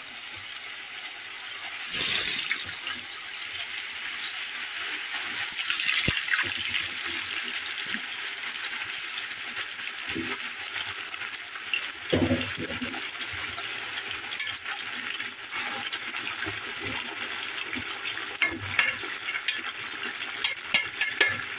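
Potato sticks deep-frying in hot oil in a stainless steel pot, a steady sizzling bubble, vigorous because the raw potatoes have just gone into the oil. Near the end a slotted spoon stirs them, with a few sharp clicks against the pot.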